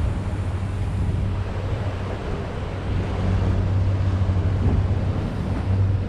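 Boat engine running steadily with a low hum, with wind buffeting the microphone and the noise of water.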